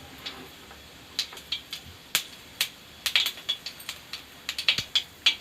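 Mustard and cumin seeds popping and spluttering in hot oil in a kadai: irregular sharp pops, growing more frequent toward the end.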